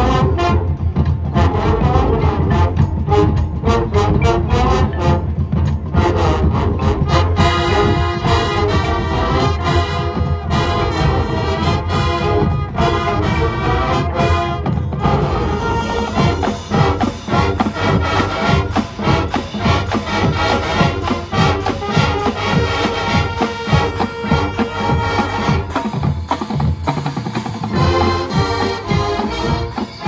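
High school marching band playing its field show: drumline and pit percussion hit for the first several seconds, then the brass section comes in with sustained chords over the percussion, easing off briefly near the end before swelling again.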